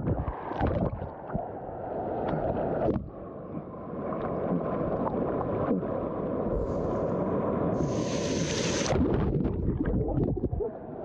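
River rapids rushing and gurgling around a GoPro that dips in and out of the current, with muffled bubbling when it is under the water and splashing when it breaks the surface. There is a short burst of brighter hiss about eight seconds in.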